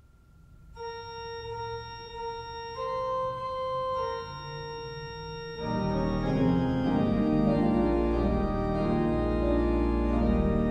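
Organ playing the introduction to a sung piece: a single line of held notes at first, then full chords with a deep bass joining about five and a half seconds in.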